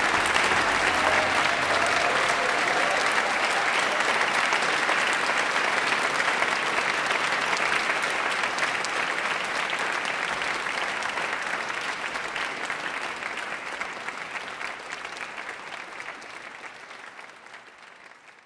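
Large audience applauding, a dense steady clapping that slowly fades away over the last several seconds.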